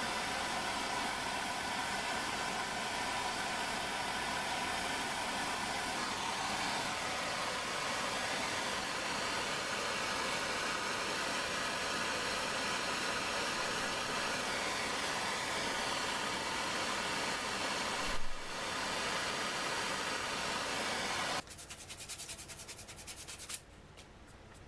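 An electric power tool runs steadily with a grinding, rushing noise, with one brief louder knock about 18 seconds in. About 21 seconds in it cuts off and winds down with a fast rhythmic ticking for about two seconds before fading to a low hiss.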